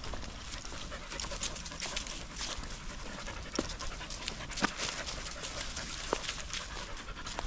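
Dogs panting close by, with a few light sharp cracks from footsteps on dry leaf litter.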